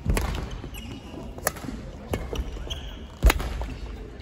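Badminton rally on a wooden sports-hall floor: sharp racket strikes on the shuttlecock and heavy footfalls as the players lunge and move. The loudest impact comes about three seconds in.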